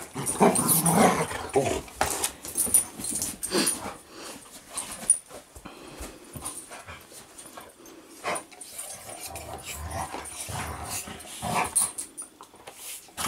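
Two dogs play-fighting, growling in irregular bursts, loudest in the first few seconds and again near the end.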